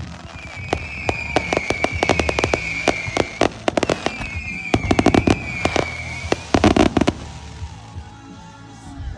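Fireworks going off in rapid volleys of sharp bangs and crackles, with a high steady whistle sounding twice over them; the barrage stops about seven seconds in.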